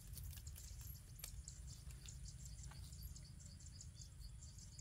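Faint countryside ambience: insects and birds chirping in quick high notes over a steady high insect trill, with a low wind rumble underneath and a couple of light clicks.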